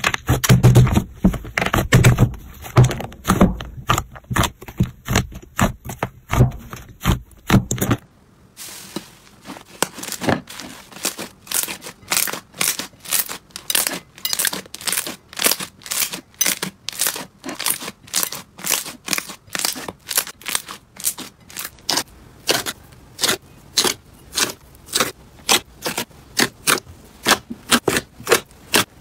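Slime being squeezed and pressed by hand, giving dense crackling pops and squelches as the air trapped inside bursts. About eight seconds in the sound changes to a lighter, regular series of crisp pops, about two a second, as fingers poke and press a different slime.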